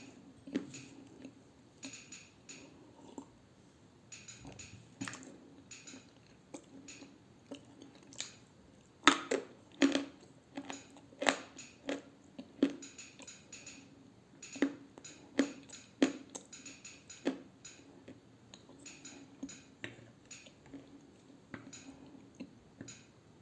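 Chewing dry edible clay: irregular sharp crunches as pieces are bitten and crushed, loudest about nine to twelve seconds in, with softer chewing between.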